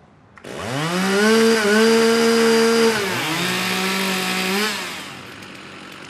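STIHL two-stroke chainsaw being warmed up before a stock-saw race. Its engine comes in about half a second in, climbs fast to a high rev held for about two seconds, dips briefly, revs again a little lower, and drops away near the end.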